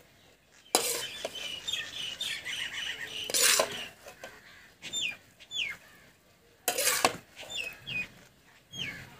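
Steel slotted skimmer scraping against a metal karahi in a few separate strokes as dry, crumbly khoya is scooped out. Birds chirp repeatedly in the background with short falling calls.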